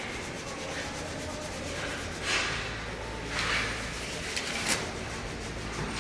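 Wiping strokes rubbing over a steel weld bead, cleaning off the excess penetrant dye before the developer goes on. A steady rubbing hiss with three stronger strokes in the second half.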